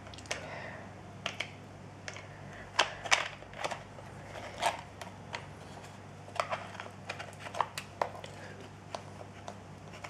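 Irregular sharp plastic clicks and taps, a dozen or so, as a small screwdriver pries the clear plastic driveshaft cover off a Traxxas Slash 4x4 chassis.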